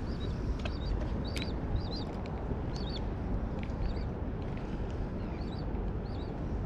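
Steady wind rumble on the microphone, with small birds chirping over it in short, irregular calls, one or two a second.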